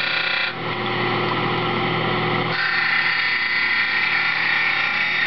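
Dental model trimmer's motor and grinding wheel running steadily. The wheel grinds into the side of a lower dental model twice, with a harsher, gritty sound: briefly at the start, then again from about two and a half seconds in.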